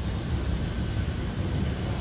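Steady low rumble of outdoor street background noise, with no distinct events.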